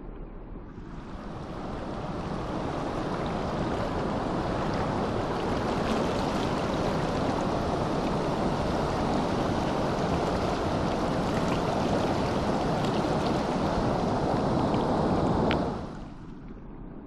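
River current rushing steadily, swelling in over the first couple of seconds and dropping away abruptly near the end.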